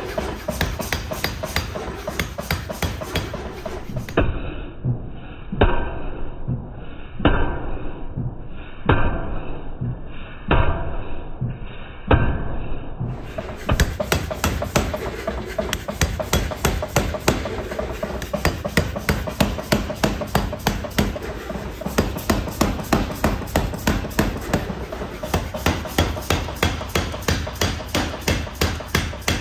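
Power hammer pounding a red-hot steel billet forged from an old bearing, in rapid blows about four a second. Through a stretch in the middle the blows come singly, about every second and a half, and sound muffled.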